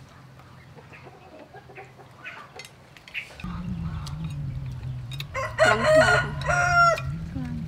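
A rooster crowing once, loud, a call of about a second and a half starting a bit past the middle, over a steady low hum that comes in about halfway through. Fainter clucking comes before it.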